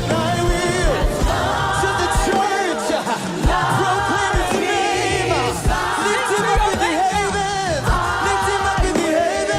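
Gospel worship music: singers, with a choir-like group of voices, over a band with a steady beat.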